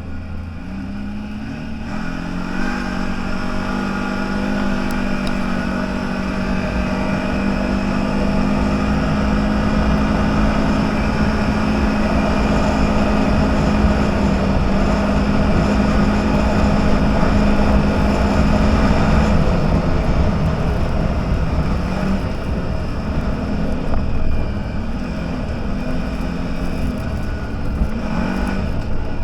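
CFMoto 1000 off-road vehicle's engine running under load. Its revs climb in the first two seconds, hold steady and high, then drop about two-thirds of the way through and rise and fall unevenly.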